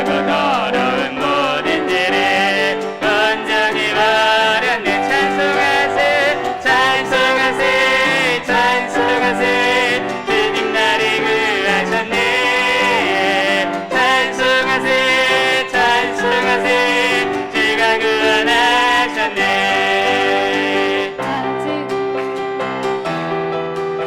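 Church praise team singing a worship song with piano accompaniment, the voices held with vibrato. Near the end the singing drops away and the piano carries on.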